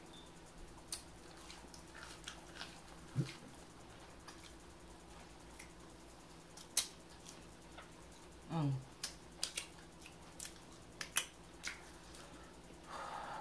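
Eating breaded fish sticks: scattered crunches, lip smacks and wet mouth clicks from chewing. Two short hums break in, about three seconds in and again near eight and a half seconds, the second falling in pitch.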